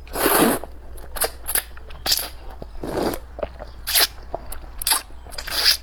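Plastic packaging of instant luosifen (river-snail rice noodles) crinkling in about six short bursts, with small clicks and snips between.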